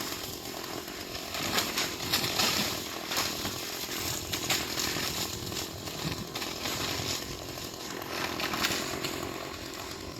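Chainsaw running, its level rising and falling unevenly.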